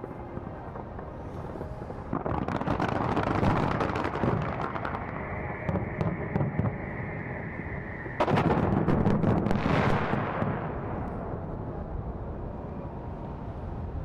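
Fireworks display: rapid bangs and crackling from many shells at once. The sound builds about two seconds in, jumps to a fresh loud volley about eight seconds in, then fades away.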